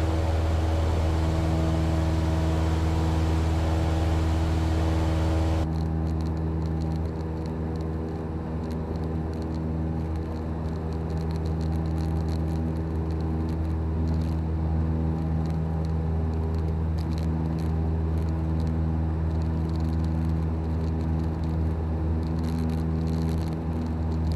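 Cessna 172's piston engine and propeller running steadily during take-off and climb-out, a loud, even drone heard from inside the cockpit. About six seconds in, the upper hiss suddenly drops away and the drone carries on a little duller.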